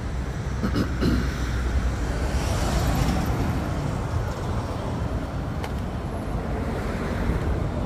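Road traffic on a busy avenue: a steady rush of tyre and engine noise with a low rumble, swelling as a vehicle passes about three seconds in.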